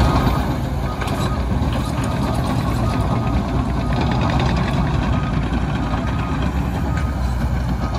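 Cat D6K bulldozer's diesel engine running steadily under work, with faint short beeps from its reversing alarm now and then.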